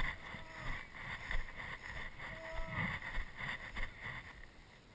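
Small water slaps and lapping against a small boat's hull on a calm sea, with faint distant voices heard twice.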